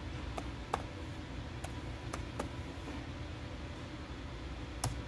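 Lenovo laptop keyboard keys tapped one at a time: five light clicks over the first two and a half seconds, then one louder keystroke near the end, over a steady low hum.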